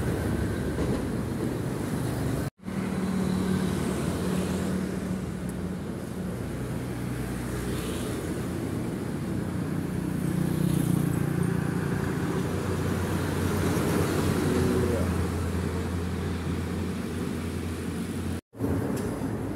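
Street traffic: heavy diesel trucks and motorbikes passing, a steady low engine drone that swells and fades as vehicles go by. The sound cuts out for an instant twice.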